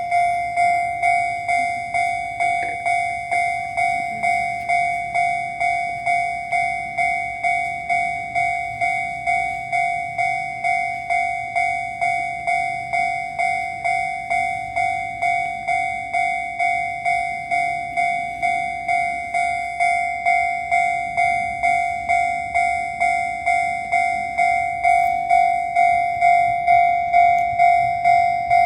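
Japanese railway level-crossing warning bell ringing in a rapid, even, repeated ding, signalling that a train is approaching. It grows somewhat louder in the last few seconds.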